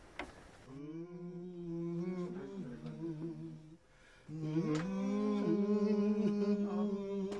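A voice humming a slow wordless tune in two long phrases of held notes, with a short break about four seconds in.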